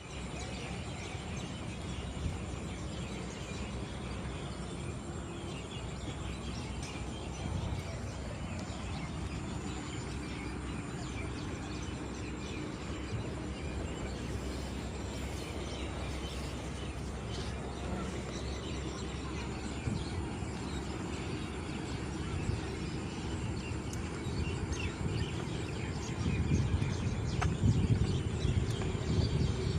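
Small birds chirping over a steady low rumble, which grows louder near the end.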